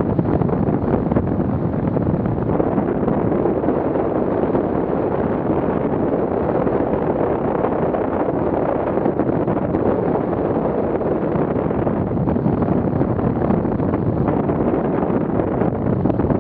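Steady wind noise: air rushing over the microphone of a camera mounted on a hang glider in flight.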